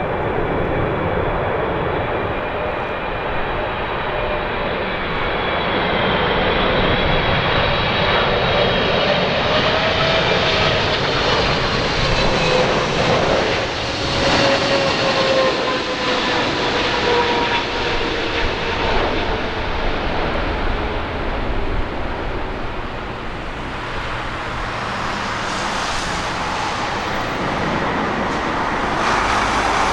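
Jet freighter's turbofan engines on landing approach passing overhead: a steady roar with an engine whine that slowly falls in pitch as it goes by, loudest about a third of the way in.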